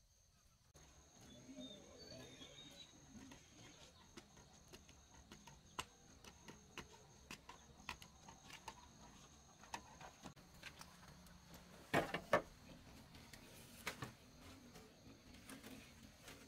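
Footsteps and the small knocks of a shovel and a basin of cabbage being carried and set down, with two sharp knocks about three quarters of the way through and another shortly after. Behind them is a steady high insect drone and an occasional bird chirp.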